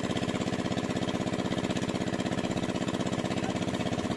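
Small single-cylinder engine running steadily at an even speed, with a fast, regular firing beat.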